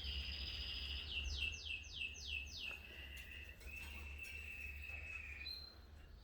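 Canary singing: a high trilled note, then a run of five quick whistled notes, each sweeping downward, then a long steady trill that stops about five and a half seconds in. A steady low rumble sits underneath.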